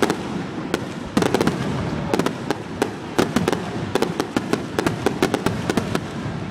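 Fireworks display bursting: a rapid, irregular barrage of many sharp bangs and crackles over a continuous rumble, with a dense cluster of reports about a second in.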